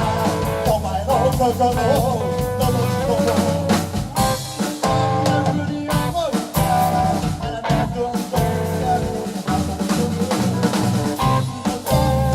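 Live rock band playing: electric guitar over a drum kit with bass drum and rimshots keeping a steady beat.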